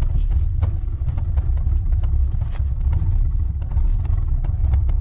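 Wind buffeting the microphone in a steady low rumble during rain, with scattered sharp taps of raindrops.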